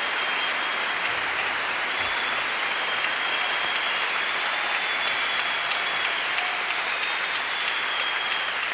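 Live concert audience applauding steadily at the end of a song.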